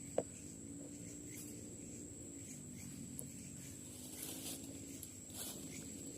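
A steady high-pitched insect drone, typical of crickets at night, with a single sharp click or knock about a quarter of a second in and a couple of faint rustles near the end.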